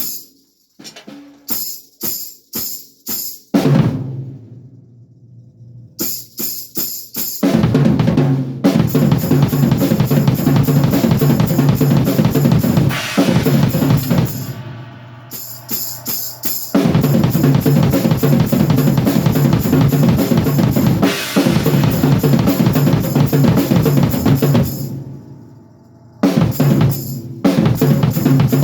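Drum kit played solo as a warm-up. It opens with a few separate hits that ring out, then moves into long runs of fast, dense strokes across the snare, toms, bass drum and cymbals, broken by a couple of short pauses.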